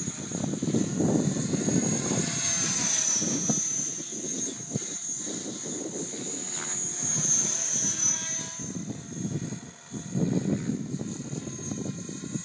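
Align T-Rex 550E electric RC helicopter in flight: the high whine of its brushless motor and drive gears, with the churn of the rotor blades. The pitch dips and rises again twice as the helicopter passes and turns overhead.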